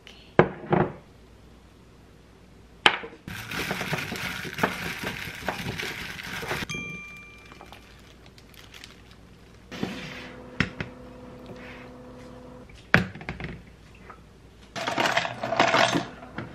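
Kitchen handling sounds: sharp knocks of dishes, a few seconds of rustling as cucumber chunks are tossed in a ceramic bowl by a plastic-gloved hand, a brief ringing tone, then more knocks and clatter as the plate and a glass are set out on a tray.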